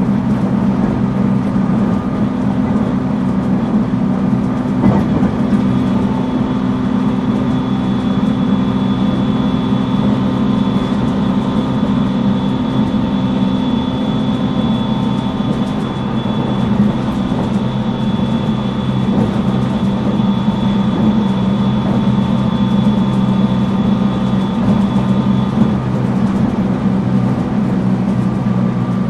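Running sound of a JR East 719 series electric multiple unit motor car cruising at a steady speed: a steady traction motor and gear hum with a thin high whine above it from a few seconds in until near the end. This car is known for an unusual running noise.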